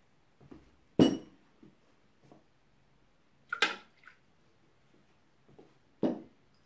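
Three sharp clinks of small glass containers knocking against the steel mixing bowl of a Thermomix TM5 and the tabletop as ingredients are added, each with a brief ring, about a second, three and a half seconds and six seconds in, with faint light taps between.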